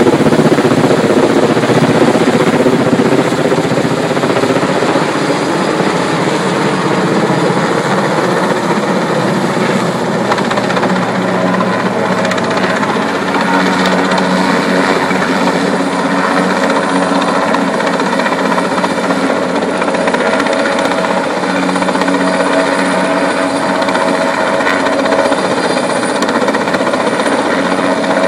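Helicopter running steadily, its rotor and engine making a continuous, rapid chopping drone; a little louder in the first few seconds.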